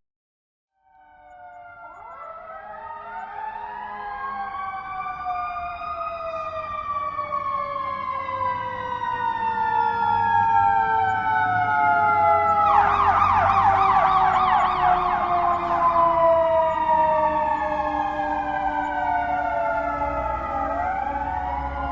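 Several police car sirens wailing together, starting after a second of silence: they wind up in pitch, then fall slowly. About 13 s in a fast yelp joins for about three seconds, and near the end the wail winds up again, over a low engine rumble.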